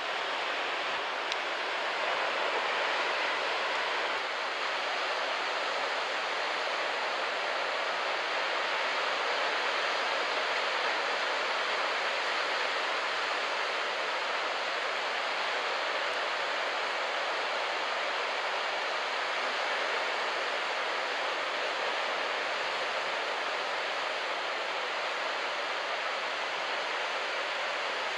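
Ocean surf breaking on a sandy beach, a steady even wash of white noise with no distinct single wave crashes.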